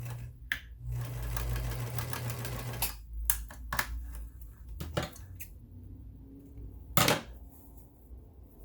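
Vintage Electra SX4000 electric sewing machine running a test straight stitch after cleaning: a steady motor hum with a fast rattle of the needle mechanism for about two seconds, starting about a second in, then stopping. Several sharp clicks and knocks follow, the loudest about seven seconds in.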